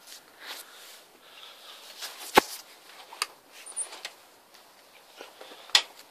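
Faint scuffing and handling noises with scattered light knocks, and two sharp clicks, one about two and a half seconds in and a louder one near the end.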